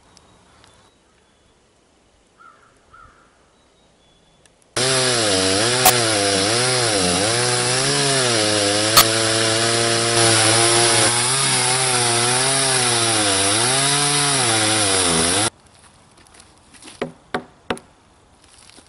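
Chainsaw running under load in an Alaskan chainsaw mill, ripping a log lengthwise into a slab; the engine pitch sags and recovers again and again as it cuts. The saw sound starts and stops abruptly about five seconds in and about three seconds before the end, with two sharp clicks during the cut, and a few light knocks follow.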